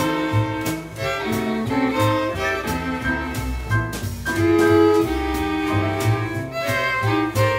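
Jazz string section of three violins and a viola bowing melody lines, over double bass and drums keeping a steady beat.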